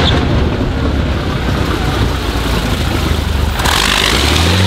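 The 47-litre BMW VI aircraft V12 of Brutus running hard through an exhaust with no real silencer as the car accelerates with its narrow rear tyres spinning and drives close past. Near the end a steady, deep engine note comes through clearly.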